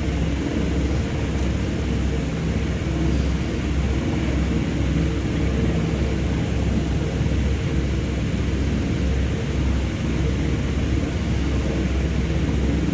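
Steady low engine rumble with a faint steady hum.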